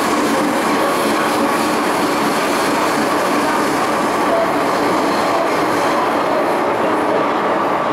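MTR Tsuen Wan Line M-Train in motion, heard from on board: a steady, loud rumble of wheels on track and running gear.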